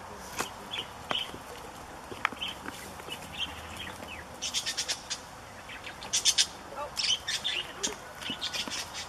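Small birds chirping in short high calls, with bursts of rapid sharp clicks, the loudest cluster about six seconds in.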